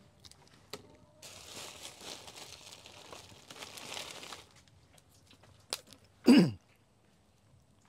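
Plastic wrapping crinkling and rustling for about three seconds while food offerings are handled, then a sharp click and one short, loud cough.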